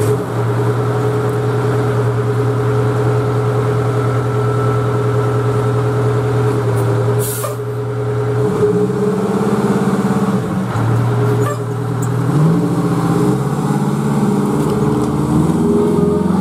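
A 1989 Pierce Arrow fire engine's diesel engine running steadily at idle, with a short hiss of the air brakes releasing about seven seconds in. The engine then revs up in rising steps as the rig pulls away.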